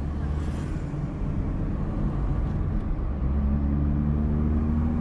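Chevrolet Corsa Classic 1.0's four-cylinder engine and stock exhaust, heard from inside the cabin while driving: a steady low rumble. About three seconds in the engine note rises slowly as the car pulls harder.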